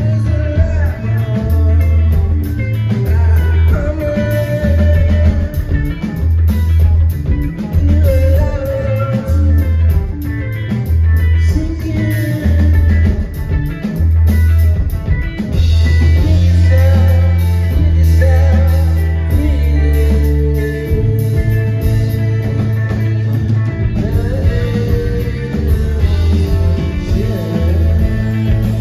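Live rock band playing, led by a deep bass guitar line in repeated notes about a second apart, held longer for a few seconds past the middle, with a voice singing over it.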